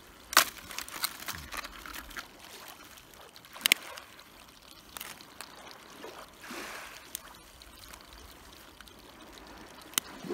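Blue crabs being worked out of a hoop net and dropped into a bucket of crabs: a few sharp clacks of shells and claws, one doubled about four seconds in, over a soft wet trickling.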